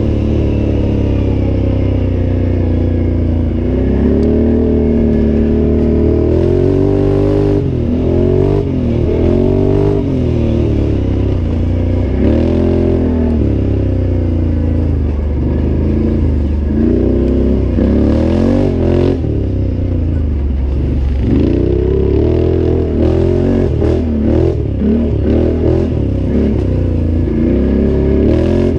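Can-Am Outlander 800 ATV's V-twin engine being raced, revving up and falling back again and again as the throttle is worked, with scattered knocks and clatter.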